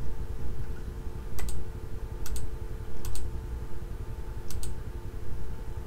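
Computer mouse clicking: four pairs of sharp, quick clicks spaced about a second apart, over a steady low hum.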